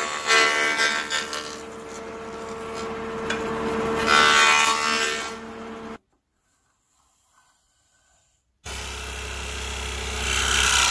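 Benchtop jointer running with a steady hum while a board is pushed across its cutterhead, the cutting noise swelling about four seconds in. After a gap of silence about six seconds in, a scroll saw runs with a low rumble that grows louder near the end.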